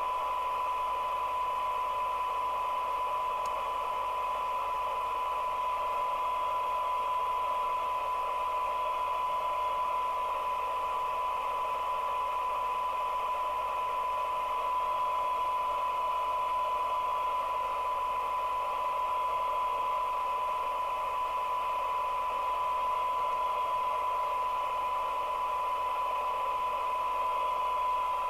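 A Danita FM CB radio's receiver putting out a steady 1 kHz test tone from a signal generator, over a band of receiver hiss, while its front end is aligned on the test signal.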